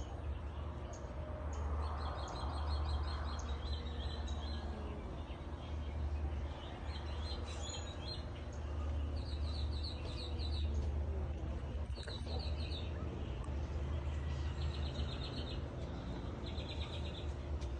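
Small bird chirping in quick bursts of short, high notes, repeated every second or two, over a steady low hum.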